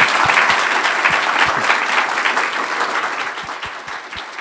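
Audience applauding, loud at first and dying away toward the end.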